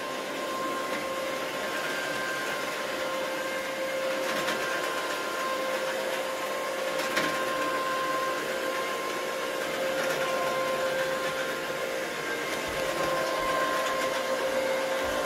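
Electric carpet-cleaning machine running steadily: a constant motor whine over an even hiss.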